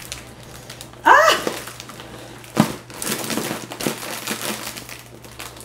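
Metallic foil balloon crinkling and crackling as it is squeezed and crushed between the hands in an attempt to burst it, with a few sharper crackles. A short voiced grunt comes about a second in.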